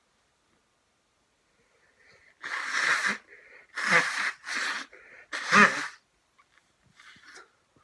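A man's sneezing fit: after a quiet start, a run of loud gasping breaths and sneezes from about two and a half to six seconds in, the last the loudest, then a softer breath near the end.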